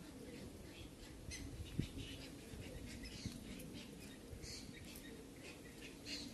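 Small birds chirping in short, scattered calls, with two dull thumps about two and three seconds in as a cat brushes against the phone.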